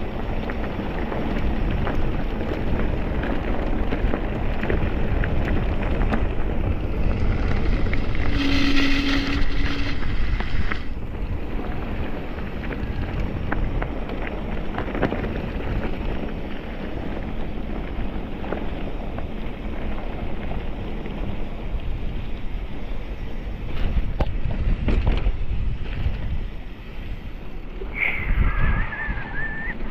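Wind rushing over the microphone during a ride. A brief higher-pitched tone comes about eight seconds in, and a whistle-like tone near the end.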